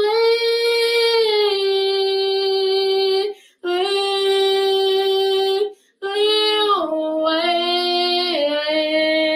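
A woman singing unaccompanied, holding long sustained notes in three phrases with short breaths between them; the last phrase steps down in pitch partway through.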